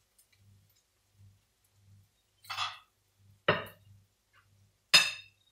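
A serving spoon scraping and knocking on cookware as food is dished onto a plate: a short scrape about two and a half seconds in, a knock a second later, and a ringing metal clink near the end.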